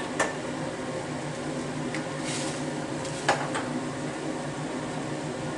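Steady roar of a commercial gas wok range and its extraction, with water boiling in a wok. Two sharp clinks break through, about a quarter second in and again a little after three seconds.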